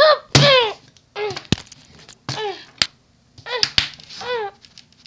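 A boy's short, high frightened cries, about six of them, each falling in pitch, with a few sharp knocks between them as the camera is jostled.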